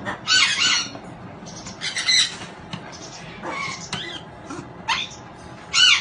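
African grey parrot giving short, high-pitched calls, about five of them spaced roughly a second apart.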